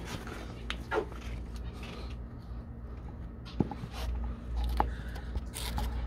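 Scattered light knocks, clicks and rustling of handling as the phone is moved about a wooden, wire-fronted bird cage, over a steady low hum.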